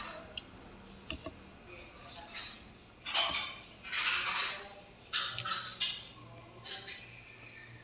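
Close-up eating sounds of chicken and rice eaten by hand: a few light clicks against the plate early on, then a run of short smacking and chewing noises from the mouth in the second half.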